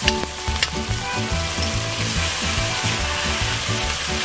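Chopped tomatoes, green pepper and onion sizzling in hot olive oil in an enamelled cast-iron Dutch oven as a metal spoon stirs them, with a couple of sharp spoon clicks against the pot in the first second. Background music plays underneath.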